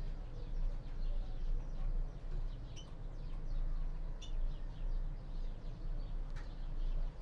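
Caged greenfinches giving short, high chirping call notes every second or two, over a steady low background hum.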